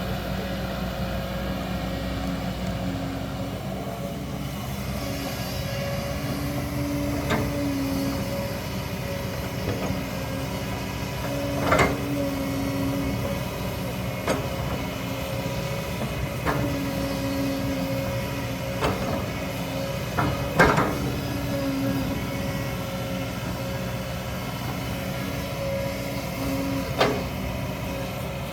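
Kobelco hydraulic excavator working: a steady diesel engine drone with a wavering hydraulic whine, broken every few seconds by sharp metallic knocks and clanks, the loudest about two-thirds of the way through.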